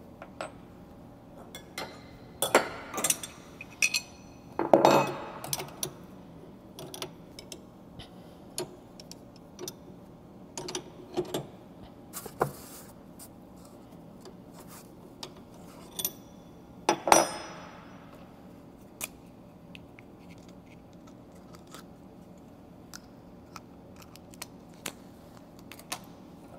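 Scattered metallic clinks and taps of wrenches on the collet nut as the bit is changed in a stopped CNC router spindle, swapping a round-over bit for a compression bit. A few louder ringing clinks come about 3, 5 and 17 seconds in, with a short scrape in between.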